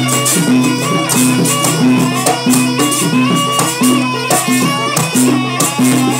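Jaranan gamelan ensemble playing a fast sampak: drums and jingling percussion keep a quick, even beat under a short repeating pitched melody.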